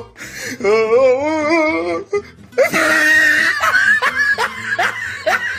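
Funny meme sound-effect clips played back to back. First a wavering, quavering voice-like tone, then after a short break a shrill sustained sound, then a quick run of short rising sounds, laughter-like over music.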